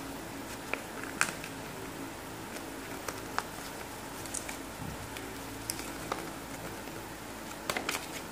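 Thin paper leaflet being unfolded and opened out by hand: scattered crinkles and crisp snaps of the paper, the sharpest about a second in and a quick cluster near the end, over a steady low background hum.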